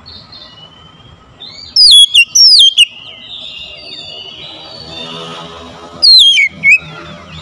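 Oriental magpie-robin singing: loud, sharp whistled notes that sweep downward in pitch, a quick cluster about two seconds in and another pair near the end, with softer twittering in between.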